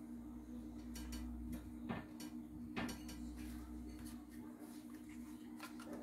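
Several light clicks and knocks of small objects being handled on a wooden desk, over a steady low hum.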